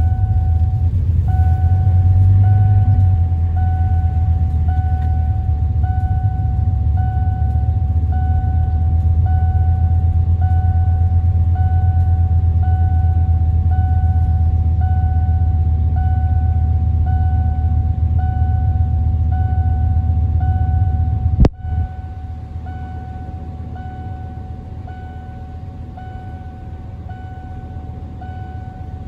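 A Ford E-350 van's engine idling under a dashboard warning chime that repeats about once a second. About two thirds of the way through there is a sharp knock, and the engine's rumble stops while the chime keeps going.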